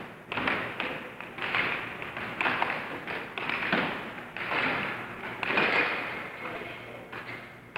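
Air hockey puck and mallets clacking in a fast rally on an air table: a string of sharp hits, about one a second, each trailing off briefly.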